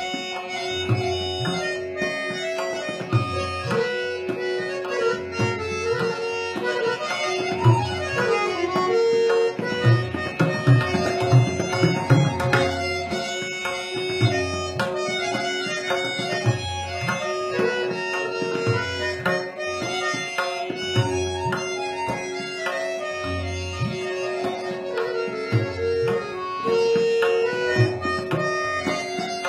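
Thumri accompaniment: tabla playing a steady rhythmic cycle under a held melody on harmonium, over a continuous drone. The tabla strokes grow busier and louder midway through.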